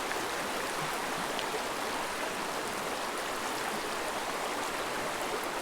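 Small creek flowing: a steady, even rush of running water.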